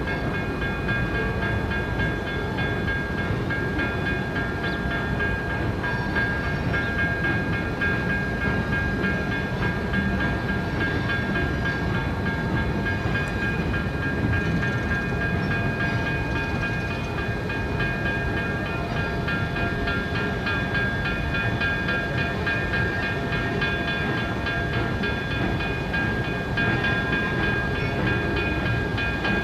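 CNR 2-8-0 steam locomotive #2141 rolling slowly in with its train, giving a steady rumbling running noise. Several thin, steady high ringing tones sit over the rumble.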